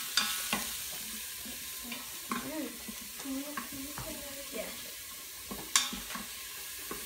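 Garlic and green onions sizzling in hot oil in an Instant Pot's stainless steel inner pot on sauté, being browned while a wooden spatula stirs them, clicking and scraping against the pot. One sharper knock comes about six seconds in.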